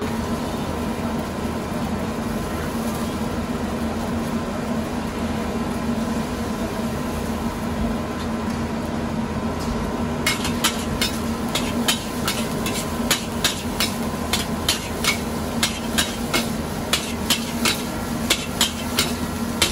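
A metal ladle striking and scraping a large wok while noodles are stir-fried, giving sharp clanks about two to three times a second. The clanks start about halfway through. Under them a steady kitchen hum with a low tone runs throughout.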